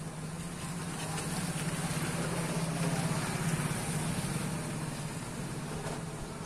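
Tractor engine running with a low, steady pulsing, growing louder through the middle and easing off near the end.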